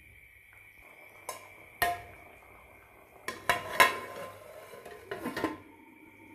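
Aluminium cookware clanking: two light metal knocks, then a cluster of loud clatters about halfway through and a few more clinks near the end as an aluminium lid is set down onto the pot.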